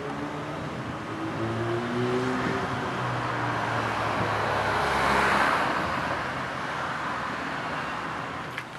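Street traffic: a car drives past, with engine hum and tyre noise growing to its loudest about halfway through, then fading away.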